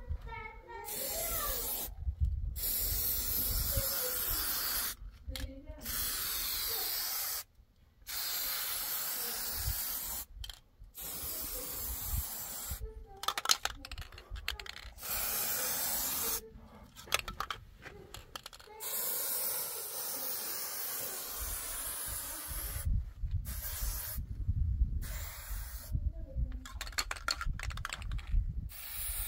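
Aerosol spray paint can hissing in repeated bursts of about one to four seconds, each cut off sharply with a short pause before the next.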